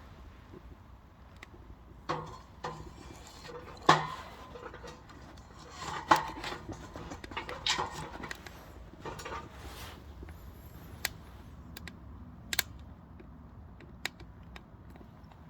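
Irregular knocks and metallic clinks at the wood stove in the first half, with two louder hits about 4 and 6 seconds in, then a few scattered sharp pops like a fire crackling as the oak logs and pellets catch.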